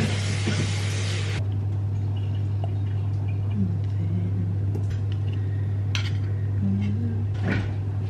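A steady low electrical hum, with a hiss that stops about a second and a half in. A metal fork clinks against a tin can twice in the second half as tofu chunks are scooped out.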